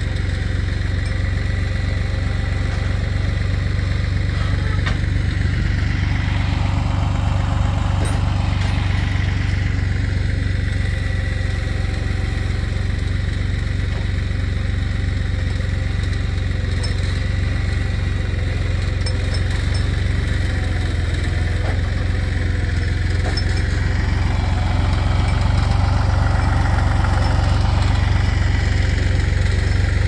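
An engine running steadily with a deep hum, swelling a couple of times and a little louder in the last few seconds.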